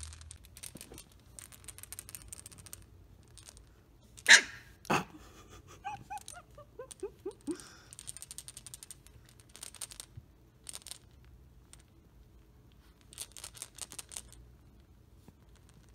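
Samoyed puppies, three weeks old, rustling and scratching on a towel while they play with a plush toy. About four seconds in come two loud, sharp yips, then a quick string of short whimpering cries that fall in pitch.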